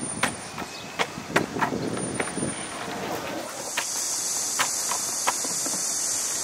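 Skateboard wheels rolling over stone paving, a rumble with sharp clacks as they cross slab joints and a drain grate. About halfway through, a steady high insect buzz sets in and holds.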